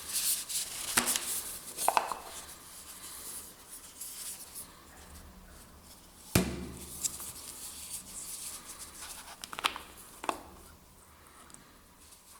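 Hands handling a small diffuser and its packaging: scraping and rustling with a few sharp clicks and knocks, the loudest about six seconds in.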